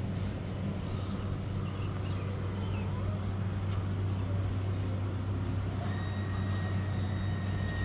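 Steady low electric hum under a faint background hiss, with a faint high whine coming in about six seconds in.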